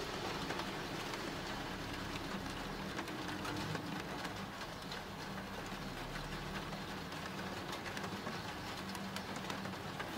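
Steady rain falling, a continuous hiss dotted with faint drop ticks, over a low steady rumble.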